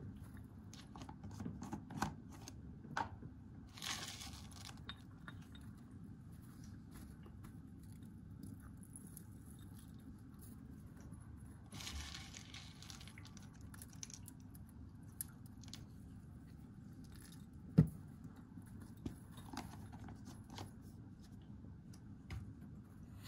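A dwarf hamster eating from its food dish: faint crunching and small clicks, with two short spells of rustling about four and twelve seconds in and one sharper knock near eighteen seconds.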